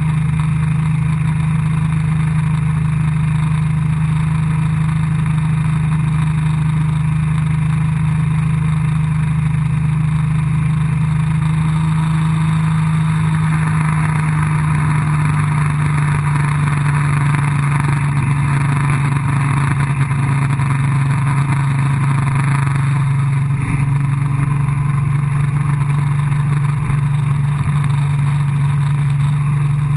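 Towing motorboat's engine running steadily at speed, a constant low drone, over the rushing hiss of the churning wake behind the stern.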